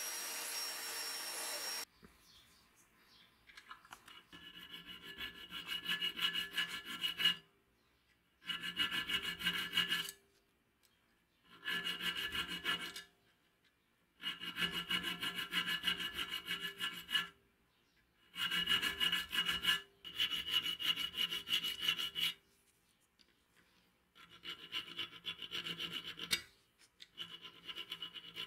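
A small hand file rasping back and forth across the steel serrated jaws of a pair of pliers, in eight bursts of rapid strokes, each one to three seconds long with short pauses between. For the first two seconds, a spinning brush wheel in a drill whirs against the pliers' handle, then cuts off suddenly.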